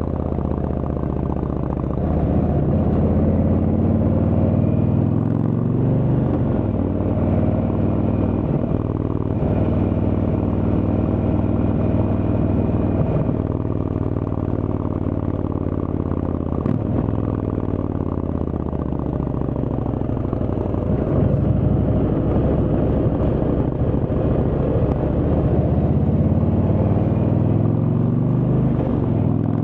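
Indian Chieftain's Thunder Stroke V-twin engine running under way through a Freedom Performance exhaust, its note rising and falling several times with throttle and gear changes.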